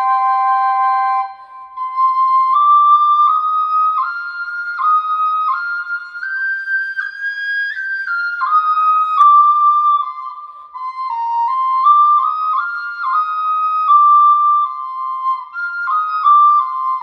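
Native American double flute (a small pocket flute) playing a slow melody of held notes that move step by step. A second, lower drone note sounds with the melody at the start and stops about a second in; the melody climbs to its highest notes around the middle, then steps back down.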